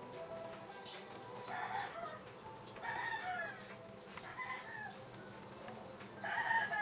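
Chickens calling in a series of four short calls, each falling in pitch; the last call, near the end, is the loudest.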